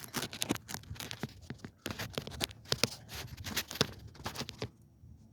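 Irregular clicks, rattles and scraping of lawnmower starter parts being handled, stopping near the end.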